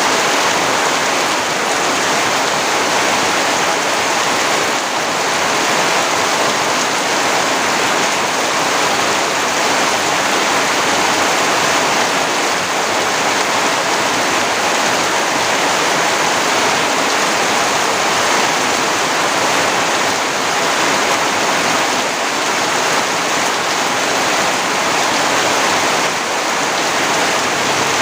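Steady rain falling, an even, continuous hiss that never lets up.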